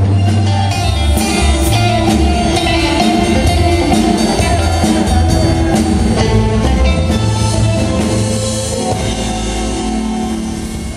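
Live band music from an electric guitar and drum kit with a singer's voice, playing a song through the hall's PA; the music starts to fade toward the end.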